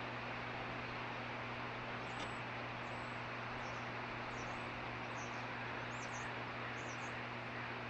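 Juvenile osprey giving a series of about six short, high chirping calls, one every second or less, over the steady rushing noise of a passing freight train and a low steady hum.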